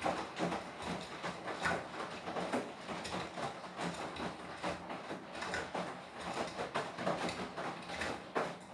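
Beko WTK104121W washing machine's drum turning and tumbling a half load of wet clothes, with an irregular run of knocks, clatter and swishing.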